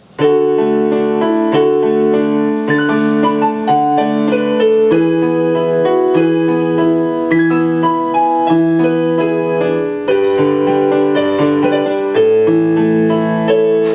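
Yamaha YPT-230 (PSR-E233) portable digital keyboard played on its piano voice: a short piece of chords and melody through the keyboard's built-in speakers.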